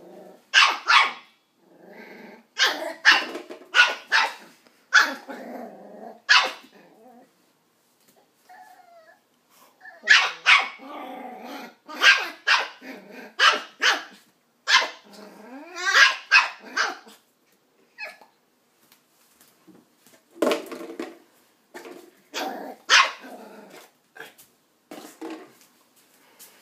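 Nine-week-old West Highland white terrier puppy barking in runs of short, sharp barks, with a few seconds' pause about a third of the way in.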